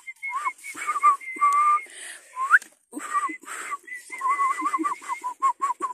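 Whistling through pursed lips: a tune of short, wavering notes with a quick upward slide about two and a half seconds in, and the notes coming faster, about four a second, near the end.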